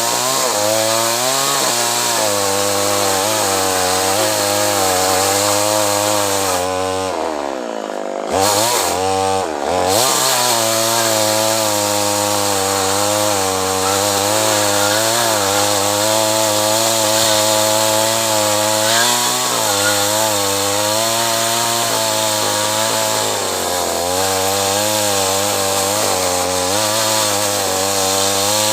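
Two-stroke chainsaw running at high revs and cutting acacia wood, its pitch wavering under load. About seven seconds in it drops low for a couple of seconds, then revs back up and carries on cutting.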